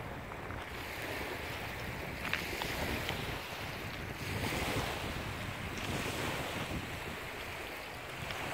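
Outdoor wind buffeting the microphone over a steady rushing noise, with a couple of faint clicks a little over two seconds in.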